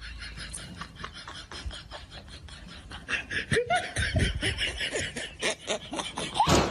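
Rapid clicks and rustles, then from about three seconds in, a person laughing in quick bursts.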